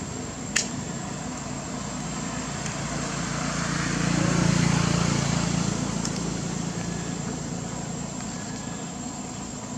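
A motor vehicle passing by, its engine rumble swelling to loudest about four and a half seconds in and then fading, over a steady high insect drone. A single sharp click sounds just after the start.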